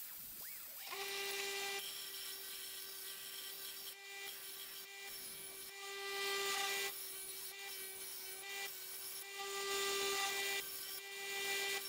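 Electric grinders working lawn mower blade steel: a steady motor hum with stretches of louder abrasive grinding noise coming and going, cut into short pieces.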